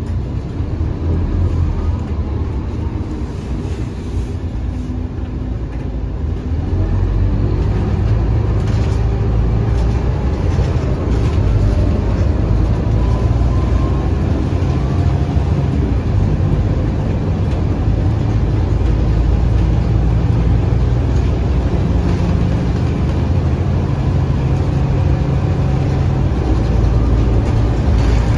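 Scania DC9 five-cylinder 8.9-litre diesel engine of a Scania K230UB bus, heard from inside the cabin. It runs at a lower level at first, then grows louder about seven seconds in as the bus accelerates, and keeps running steadily under power.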